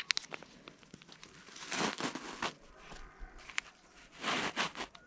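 Two short bursts of rustling, crinkling noise, about two seconds in and again near the end, with scattered light clicks between them.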